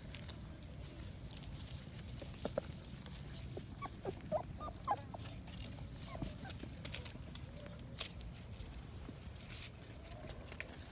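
Puppies giving a string of short, high yelps and whimpers about halfway through, over scattered clicks and scuffling while they compete for food.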